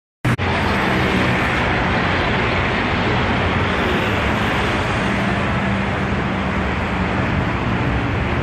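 OM VT4-20NS CNC vertical lathe running: a steady machine noise with a low hum underneath. It starts abruptly with a click about a quarter second in, right after silence.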